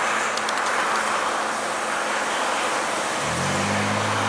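Steady rushing noise of flowing floodwater and wind. About three seconds in, a motor vehicle's engine hum comes in, rising a little and then holding steady.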